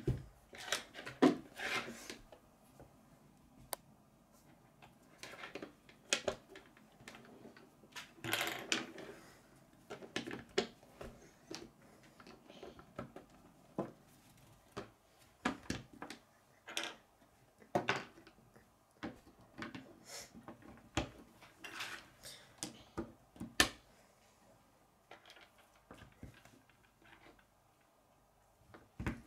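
Plastic K'nex rods and connectors clicking and snapping together as a frame is built, with pieces knocking on a wooden tabletop. The clicks come in irregular clusters, with a short rattle of pieces about eight seconds in.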